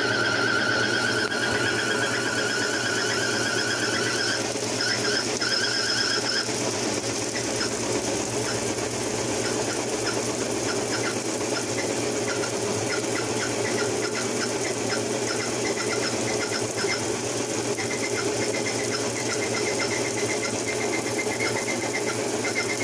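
Frigidaire 1-18 top-loading washer spinning with its spray rinse running, a steady whirring drone. A high steady squeal sounds for about the first six seconds, light ticking follows, and another high steady tone comes in later.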